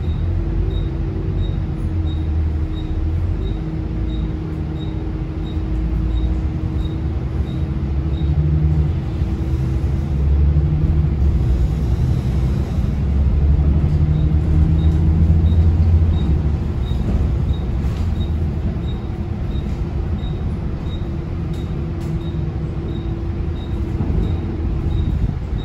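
Volvo B9TL double-decker bus heard from the upper deck while driving: the straight-six diesel drones, with a steady whine from the drivetrain. The engine gets louder through the middle as the bus picks up speed. A faint regular ticking comes about every 0.7 seconds.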